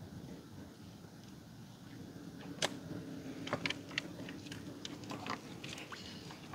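Scattered sharp clicks and knocks, about a dozen in the second half, from the gear of an anchored prawn net being hauled aboard a small boat, over a low steady hum.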